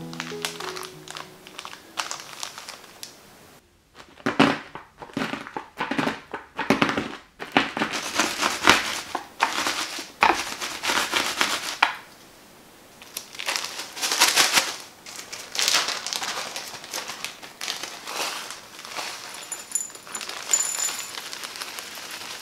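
Oreo cookies being crushed inside a plastic bag, first pressed and snapped by hand, then crushed with a rolling pin: irregular bursts of plastic crinkling and cookies cracking into crumbs, with short pauses between rounds.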